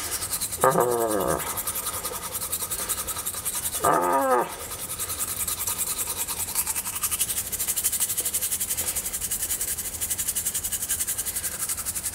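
Toothbrush bristles scrubbing teeth in a fast, steady back-and-forth, a scratchy brushing sound. Two short falling vocal grunts come through, one just after the start and one about four seconds in.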